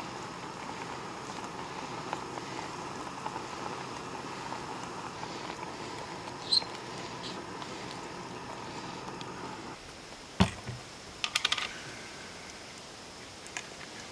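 A metal spoon stirring in a small camp-stove pot over a steady hiss that cuts off suddenly about ten seconds in. Then comes a sharp knock and a quick run of light clicks as the utensils and a glass jar are handled.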